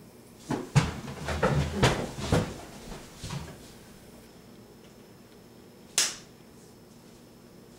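A wooden dining chair knocking and scraping and a few footfalls on the floor as someone gets up from the table and walks away, a cluster of clunks in the first couple of seconds; about six seconds in, one short, sharp hiss.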